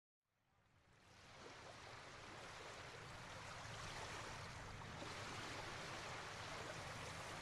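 Faint, steady rush of flowing water, like a stream, fading in from silence over the first couple of seconds.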